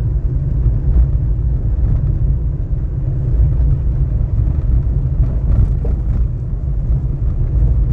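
Car driving along a tarred street, heard from inside the cabin: a steady low rumble of engine and tyre noise.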